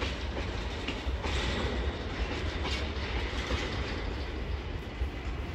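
Freight train of bogie tank wagons rolling past, the wagons' wheels on the rails making a steady rumble.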